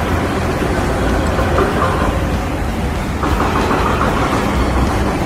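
City street traffic noise: a steady rumble of passing vehicles, with a higher hum that comes and goes.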